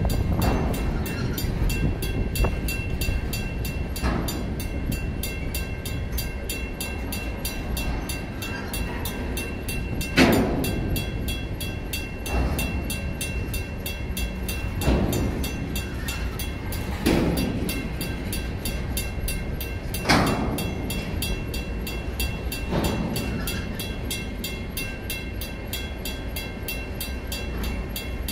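Freight train of center-beam flatcars rolling through a grade crossing: a steady low rumble of wheels on rail, with a sharp clunk every few seconds as wheels pass over the crossing. Over it the crossing signal's mechanical bell rings steadily with rapid strikes.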